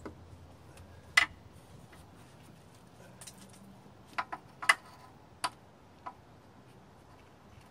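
Scattered sharp clicks and knocks of hand tools on metal while the exhaust manifold nuts are worked: a loud one a little over a second in, then a quick run of several around four to five and a half seconds in.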